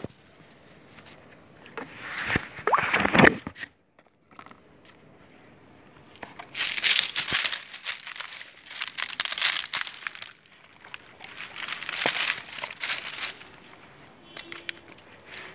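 Crinkling and rustling close to the microphone, coming in bursts: two short ones about two and three seconds in, a long stretch from about six to ten seconds, and another around twelve seconds.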